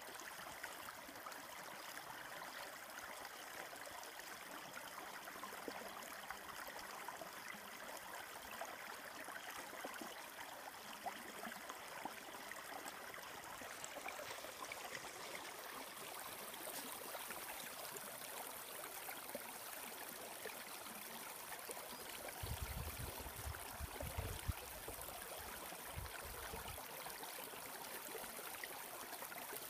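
A small spring-fed creek trickling and gurgling steadily over rocks. A brief low rumble comes twice about three quarters of the way through.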